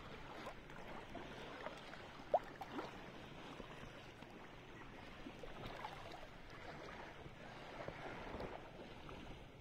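Faint, steady wash of shallow sea water moving around people wading, with light wind on the microphone. There is a short faint sound about two and a half seconds in.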